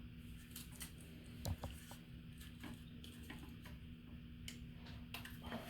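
Faint, scattered clicks and taps of small parts being handled, over a steady low hum.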